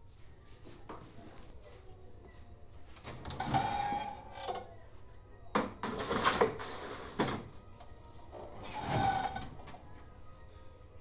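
Steel baking trays scraping and clattering as they are slid onto the oven racks, with a few sharp metal knocks. The oven door is shut near the end.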